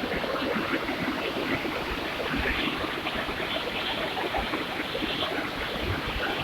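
Small waterfall: water splashing and rushing steadily.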